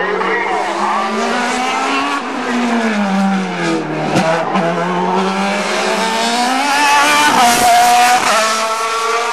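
Sports-prototype racing car's engine at full throttle, its pitch climbing through each gear and dropping sharply at every shift, loudest near the end as the car passes close.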